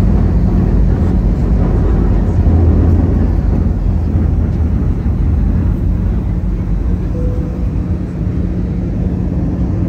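Airliner cabin noise heard from inside the cabin during the descent: a steady low engine drone under rushing air.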